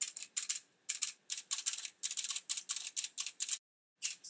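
A brush swept in quick, dry, scratchy strokes across card stock, about three strokes a second, clearing loose embossing powder, with a brief pause near the end.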